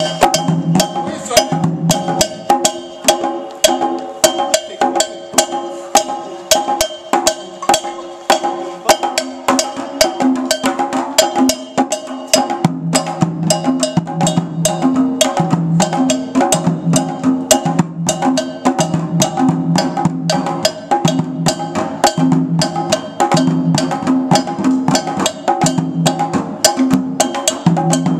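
Djembes and a conga played together in a fast interlocking rhythm, hand strokes on the drumheads under a steady pattern of sharp stick clicks. The deeper drum tones come in more strongly about halfway through.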